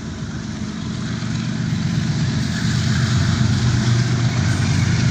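Diesel locomotive of the Green Line Express approaching, its engine a low steady drone growing gradually louder.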